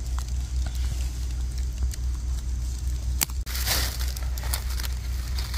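Dry pine needles and leaf litter rustling and crackling as mushrooms are picked by hand and knife. Scattered clicks, then a louder rush of rustling about four seconds in, over a steady low rumble.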